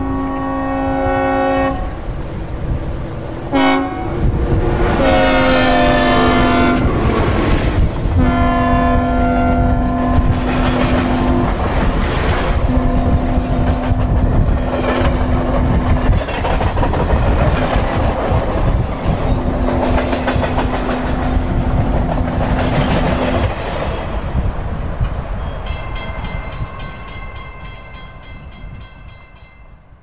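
A synthesized recreation of a Nathan K3HL three-chime locomotive horn sounds a series of long and short blasts as a train passes. Its chord drops in pitch with the Doppler shift as it goes by, over a steady rumble and clickety-clack of the train, and everything fades away near the end.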